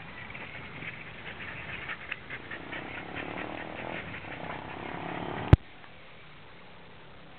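Rapid, irregular light ticking and pattering from a mountain bike ride with two dogs running alongside on the street, cut off by a single loud sharp click about five and a half seconds in. After the click only a low steady hum remains.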